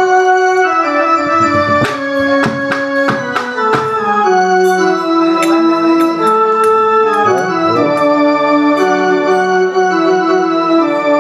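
Yamaha PSR-I500 arranger keyboard playing a slow melody of held notes in an organ voice, with a few sharp taps about two to four seconds in.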